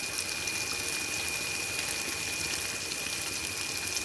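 Gongura prawn curry cooking in a kadai on the stove: a steady sizzling, bubbling hiss, over a thin steady high whine.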